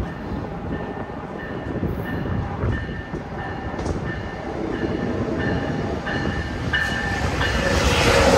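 NJ Transit passenger train moving through the station, a steady rumble of wheels on rail, with a short high tone repeating about twice a second. A hissing swell builds near the end.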